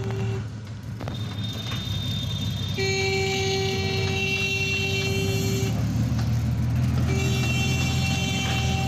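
Vehicle horn sounding one steady blast of about three seconds, then a run of shorter toots from about seven seconds in, over the steady low rumble of a road vehicle's engine.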